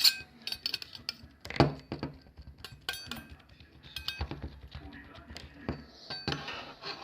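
Irregular clinks and knocks of hard objects handled, with a person's voice heard briefly.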